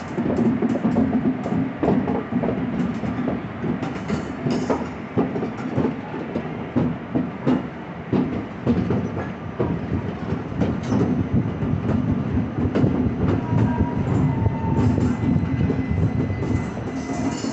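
Passenger train rolling slowly out of a station: its wheels clack irregularly over rail joints and points over a steady low rumble.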